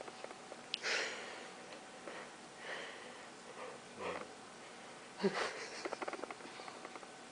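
A sleeping man breathing noisily: a run of rasping, wheezing snores and gasps for air about every second and a half, the loudest about five seconds in.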